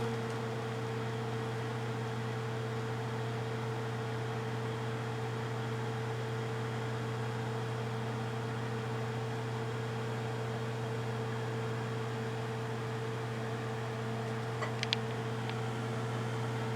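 Microwave oven running with a steady hum and whirr. There are a few small, faint clicks about fifteen seconds in.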